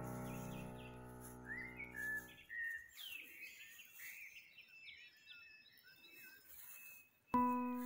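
A held music chord fading away, then several seconds of small birds chirping and calling quietly; music starts again with a loud chord near the end.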